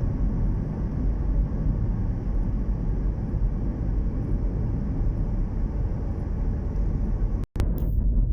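A steady low rumble with no distinct events, breaking off for a split second near the end.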